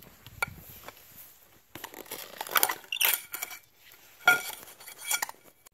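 Metal clinks, knocks and scraping as a pool safety cover's springs are worked off their deck anchors with a metal cover pole. A cluster of scrapes and knocks comes in the middle, and one sharp ringing metal clink about three-quarters of the way through.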